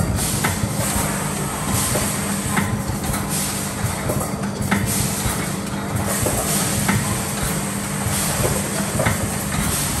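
Pneumatically operated aerosol can filling and crimping machine running: a steady mechanical hum with scattered sharp clicks and swells of air hiss.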